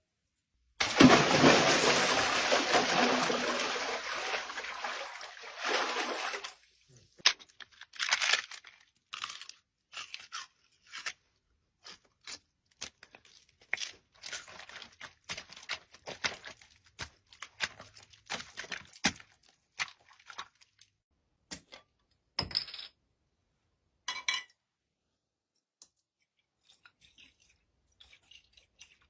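Foley sound effects made with props: a loud rushing noise for about six seconds, then a long run of small scattered crunches, clicks and rustles.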